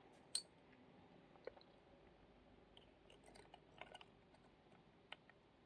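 Faint, scattered small clicks of lock picks working in the keyway of a Paclock PL 410 Pro 7-pin padlock, the clearest just after the start and a small cluster a little past the middle.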